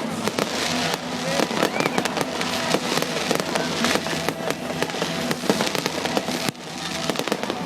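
Fireworks going off in a rapid, continuous barrage of bangs and crackles, with a brief lull about six and a half seconds in.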